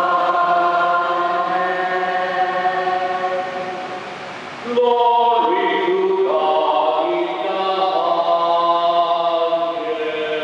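Liturgical chant sung with long held notes. It eases off slightly just before the middle, then a louder phrase begins.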